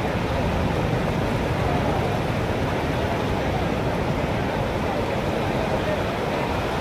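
Sea surf breaking and washing in over a flat sandy beach: a steady, even rush of waves.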